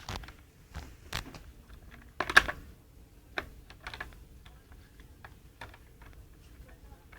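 Irregular plastic clicks and knocks from vacuum cleaner parts being handled and fitted together, with a louder cluster of rattling clicks a little over two seconds in.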